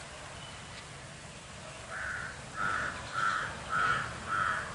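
A crow cawing five times in a quick, even series, starting about two seconds in.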